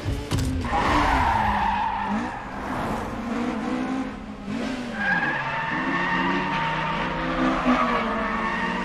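A Honda Civic Type R (EK9) and a Toyota AE86 racing in close pursuit: engines revving hard, their pitch climbing and falling again and again through gear changes and corners, with tyres squealing through the bends.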